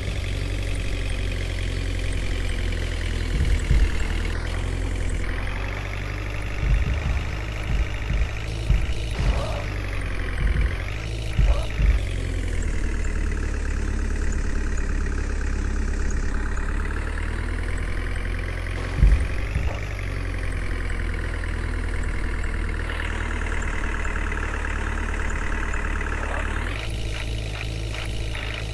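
A heavy vehicle engine running, its pitch rising and falling several times as it is revved and eased off, over a strong low rumble, with a few short thumps. Near the end a fast, regular pulsing sets in.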